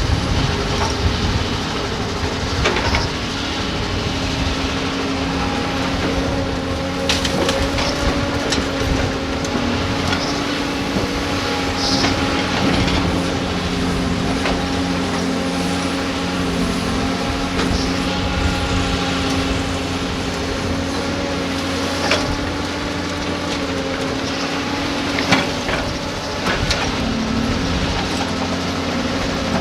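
Diesel engines of large hydraulic excavators running steadily at a sand pit, their pitch shifting slightly as they work. Scattered clanks and knocks of digging and loading rock and sand, the sharpest a little before the end.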